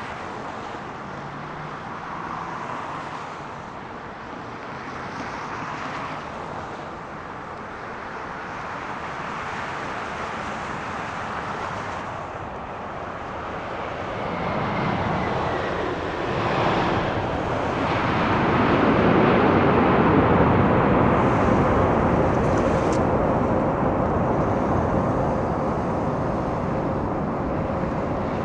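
Boeing 787-9 Dreamliner jet engines on landing, the noise swelling as the airliner comes in, loudest about two-thirds of the way through and staying loud after that, with a steady tone in the later part.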